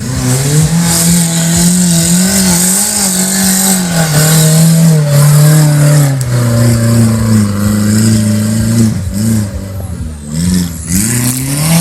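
Off-road competition vehicle's engine working hard, its pitch wavering under load, then blipping up and down in several short revs near the end.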